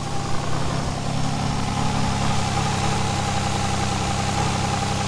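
Naturally aspirated 2JZ-GE straight-six of a Lexus GS300 idling steadily. It is still misfiring after its cracked coil-pack wiring was taped up, and the owner feels it running rough.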